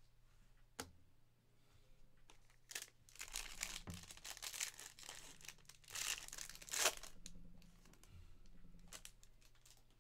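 Foil trading-card pack wrapper crinkling and tearing as it is opened by hand, in a run of rustling bursts, loudest about four and seven seconds in. A single sharp click comes just under a second in.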